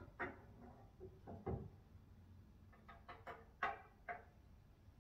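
Light knocks and clatters of objects being handled and set down, seven or eight short separate sounds with quiet between them.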